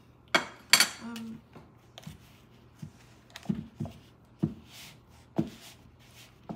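Hand squeezing and mashing crumbly cookie dough in a plastic mixing bowl, with a few dull knocks of the bowl on the countertop and soft rustles. Two sharp clicks come about half a second in.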